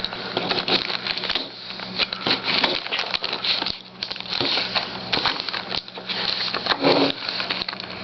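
Packaging being torn open and crinkled by hand: a continuous run of crackling and rustling with many sharp clicks.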